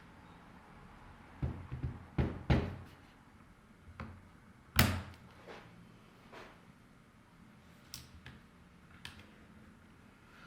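Switch puller clicking and knocking against a brown mechanical switch in the Montech MKey TKL keyboard as the switch is worked at, in irregular sharp clicks with the loudest about five seconds in. The switch is stuck and won't release from its supposedly hot-swappable socket.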